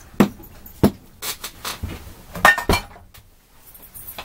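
Metal carburetor parts knocking and clinking on a wooden workbench as the Carter BBS carburetor is handled and set down: two sharp knocks in the first second, then a cluster of clinks with a brief metallic ring about two and a half seconds in.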